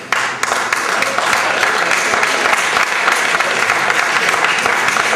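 Audience applauding: dense, steady clapping that breaks out abruptly at the start.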